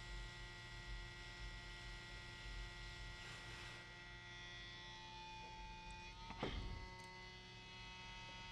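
Faint, steady electrical hum with several thin high whining tones, with a brief handling noise about six and a half seconds in.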